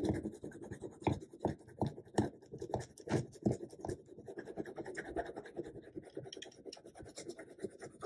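Wax crayon scratching back and forth on drawing paper in quick colouring strokes. The strokes are firmer and more spaced in the first half, then lighter and closer together.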